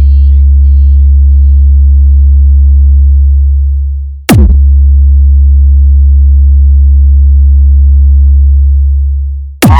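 Deep sub-bass test tone from a hard-bass sound-check track, held steady for about four seconds, cut by a fast downward sweep, then held again and fading out near the end.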